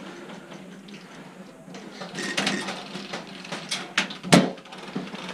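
Several sharp knocks and clicks over a low noisy background, the loudest a little over four seconds in.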